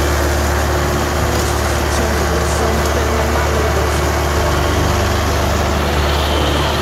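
Arbos 3050 compact tractor's diesel engine running steadily with a constant low hum as the tractor drives along at work.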